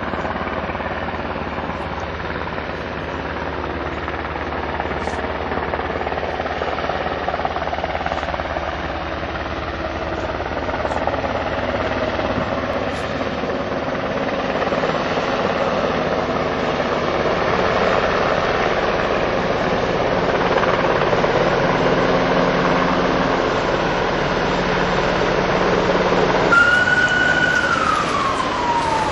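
Helicopter running with a steady engine and rotor drone. About 26 seconds in, an ambulance siren starts wailing, sweeping down in pitch.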